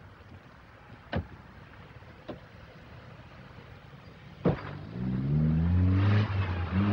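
A few sharp knocks, the last and loudest about four and a half seconds in, then a car engine revving up as the car drives off, its pitch rising a little.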